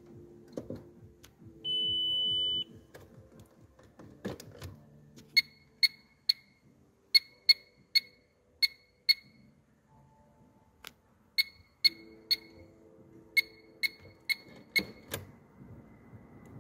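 Electronic beeper inside a car: one long steady beep, then a run of short, sharp beeps in irregular clusters of three to five over a faint low hum.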